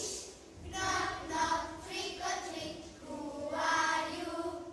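A group of children singing a song together in phrases, with short breaks between them.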